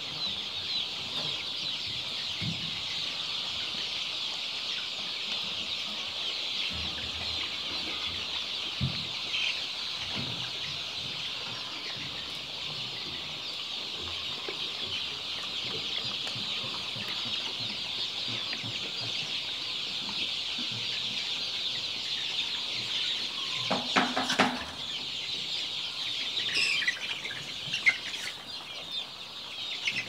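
A flock of hundreds of young chicks peeping constantly in a crowded poultry house, a dense, high, unbroken chorus of cheeps. A brief knocking comes about three-quarters of the way through, and a few louder single cheeps follow near the end.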